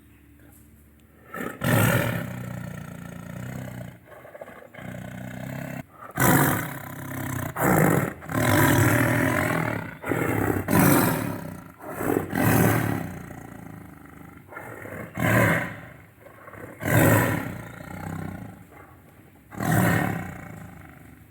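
Tiger roaring repeatedly: a series of about ten loud, deep roars, some coming in quick pairs, with quieter growling between them.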